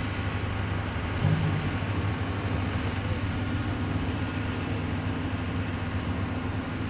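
Engine of heavy logging machinery running steadily, with a brief swell in the engine note about a second in.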